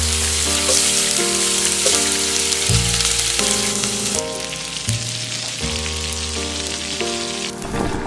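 Onion slices sizzling in hot oil in a stainless steel pot, then meat patties and sausage slices frying alongside them, a steady dense hiss that shifts in character about four seconds in. Background music with sustained low notes plays underneath.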